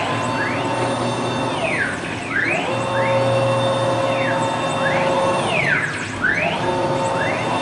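CNC router's axis drive motors whining. The pitch rises as the gantry speeds up, holds through each move, then falls as it slows and reverses, repeating every second or two.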